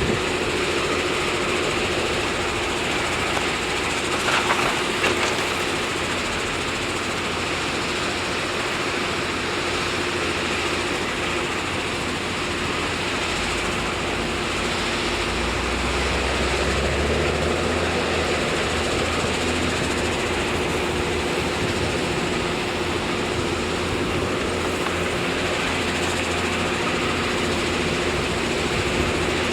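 Heavy diesel construction machinery running steadily with a constant whine over a low rumble, a short clatter about four seconds in and the rumble swelling for a few seconds around the middle.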